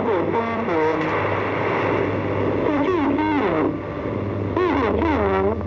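Mandarin speech from an All India Radio shortwave broadcast, played through a National Panasonic radio-cassette recorder's speaker. The voice sits over a steady low hum and a hiss of static, and the reception is poor.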